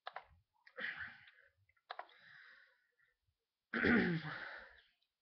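A person's short breathing and throat-clearing noises between sung lines, several brief ones with dead silence between them and the loudest about four seconds in.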